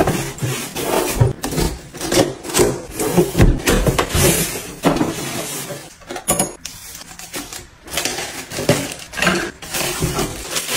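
Close-up unboxing handling sounds: a cardboard box set down on a countertop, then plastic wrapping crinkling and rustling as it is pulled off a black tray with gold handles. Irregular knocks and taps of the tray against the counter.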